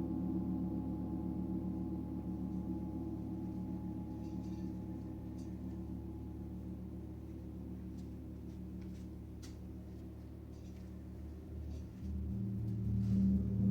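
A gong ringing with several steady low tones that slowly fade. It is sounded again near the end, and its low tones grow louder.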